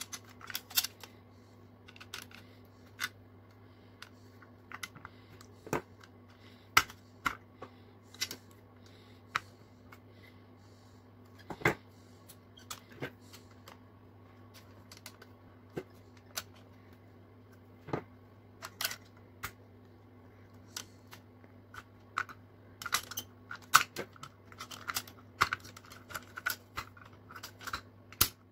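Scattered sharp clicks and knocks of pliers on the painted steel body and axles of an old toy cement mixer truck while the wheel axles are worked loose, with a quicker run of clicks and scraping near the end. A steady low hum runs underneath.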